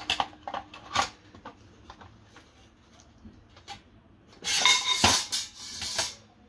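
Olympia stainless steel pressure cooker lid clinking against the pot as it is handled and lifted off. A few light metal clicks come near the start, and a louder burst of clanking with a short metallic ring comes about four and a half seconds in.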